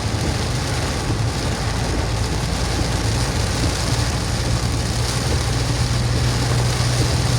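Car cabin noise while driving through heavy rain: a steady low drone of engine and road under an even hiss of rain and wet tyres.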